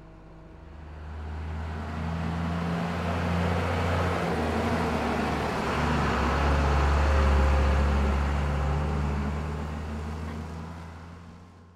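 Utility bucket truck's engine running as it drives slowly past close by. The low rumble builds from about a second in, is loudest around seven or eight seconds in, then fades away near the end.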